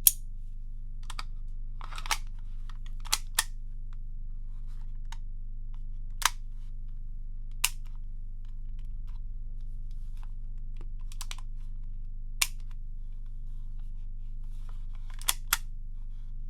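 Walther P38 .177 CO2 BB pistol firing single shots, each a short sharp crack, about nine at irregular intervals, with two close pairs, over a steady low hum.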